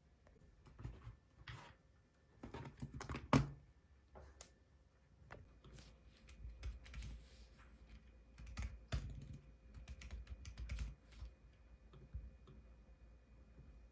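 Typing on an Apple Magic Keyboard: irregular runs of light key clicks. One louder knock stands out about three seconds in.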